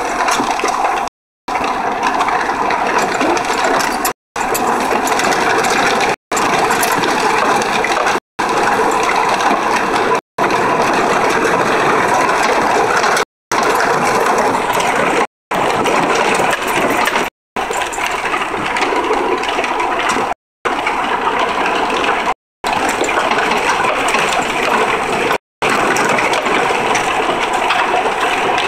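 Cabin noise from a 2003 Honda Accord V6 six-speed being driven: a steady rush of road, wind and engine noise. It cuts out completely for a split second every two to three seconds.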